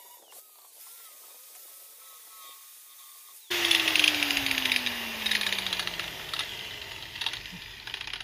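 Angle grinder with a flap disc starting suddenly about three and a half seconds in, grinding down rough flux-core MIG welds on a steel trailer frame. The grinding is loud at first, then fades while the motor's pitch falls steadily.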